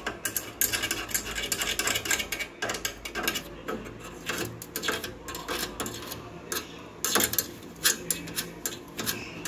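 Metal tip of a screwdriver-style line tester scraping and poking in the air-intake hole of a gas stove burner's mixing tube: irregular scratching and small clicks as it digs out the debris clogging the hole. That blockage starves the gas of air and makes the flame burn yellow.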